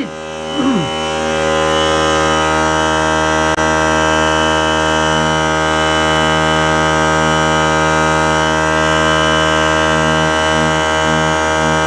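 Small portable air compressor running steadily, a loud, even hum as it pumps up its tank toward the 100 psi shut-off. There is a single brief tick about three and a half seconds in.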